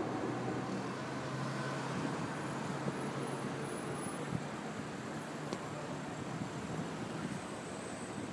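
Steady road noise of a moving car, heard from inside the cabin, with a faint low engine hum.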